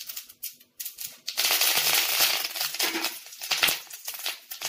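Mustard seeds and urad dal crackling in hot oil in an iron kadai. About a second in, curry leaves go into the oil with a sudden loud sizzle and spitting, which dies down near the end.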